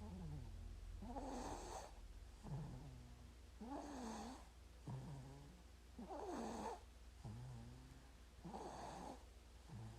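A baby snoring in sleep, a breath about every two and a half seconds, each with a rasping snore and a lower, wavering pitched part. A steady low hum runs underneath.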